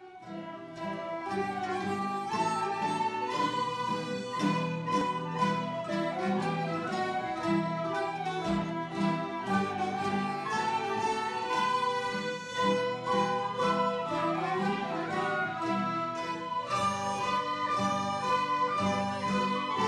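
Large amateur folk ensemble of fiddles and accordions playing a tune together, with sustained melody notes over a low chordal accompaniment. The music starts right at the beginning and runs at a steady level.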